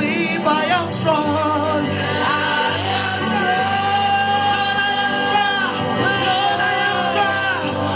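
Gospel choir singing with instrumental accompaniment, holding long notes over a steady bass line.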